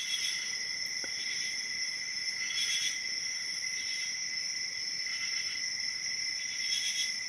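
Crickets trilling steadily in several high-pitched bands that swell and fade every second or so. A single faint click comes about a second in.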